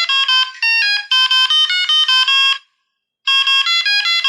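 Classic Alcatel mobile-phone ringtone played back from an MP3: a quick, bright electronic melody of short beeping notes. It stops about two and a half seconds in and starts over from the beginning under a second later, looping the trimmed section.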